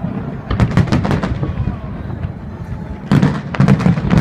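Aerial fireworks shells bursting in rapid volleys of sharp cracks and crackles over a low rumble, with one cluster about half a second in and a second, louder one near the end.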